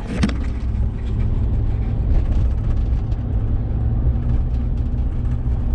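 Chevrolet Silverado 2500HD pickup with an 8.1-litre big-block V8 driving along, a steady low engine and road rumble heard from inside the cab.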